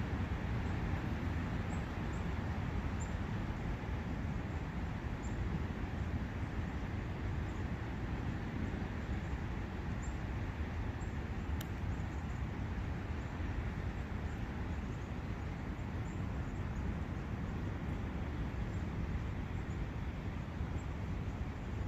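Steady rushing of a forest brook, with faint high bird chirps now and then and a single sharp click about halfway through.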